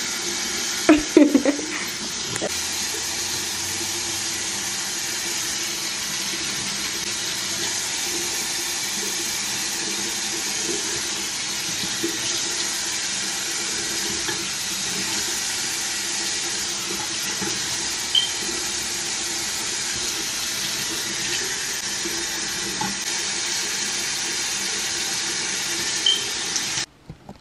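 Bathroom sink faucet running steadily into the basin, cutting off suddenly near the end. A brief clatter about a second in.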